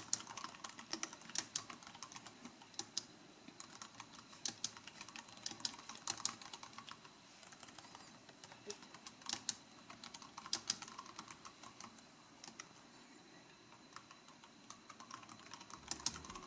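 Typing on an iNote 38BT Bluetooth keyboard: fairly quiet, uneven clicking of its round low-profile keys, with short pauses between runs of keystrokes.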